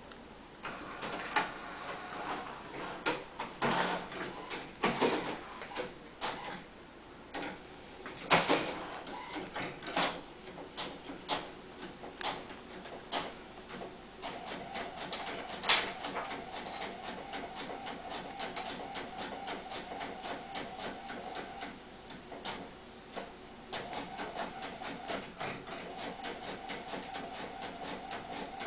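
Desktop inkjet printer at work: a series of sharp clicks and clunks in the first half, then a steady motor whir with fast ticking as the print head moves back and forth, pausing briefly once before it carries on.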